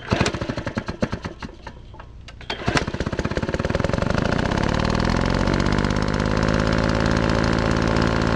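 A small engine firing in irregular pops, then catching about two and a half seconds in and running steadily, its pitch rising a little as it speeds up.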